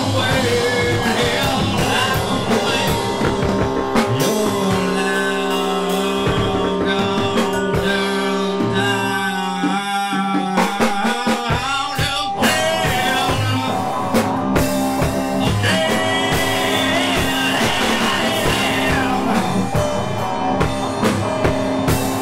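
Rock music with drum kit and guitar. The drums and low end drop out for about two seconds near the middle, leaving a bending melodic line, then the full band comes back in.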